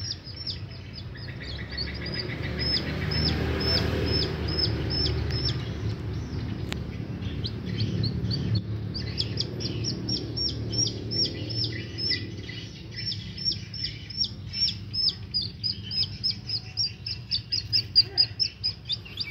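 A lone baby chick peeping without pause: a rapid run of short, high, downward-falling peeps, about two or three a second, louder near the end.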